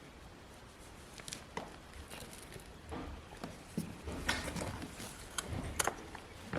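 Quiet, scattered clicks and light knocks with some faint shuffling, in a small room.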